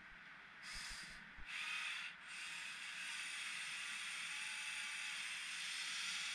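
Huina 1580 metal RC excavator's electric gear motors whirring as the arm moves, in two short spurts and then one steady run of about five seconds.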